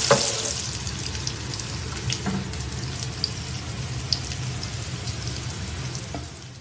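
Onions frying in a little oil in a pan: a soft steady sizzle over a low steady hum. There is a light knock right at the start and a few faint ticks after it.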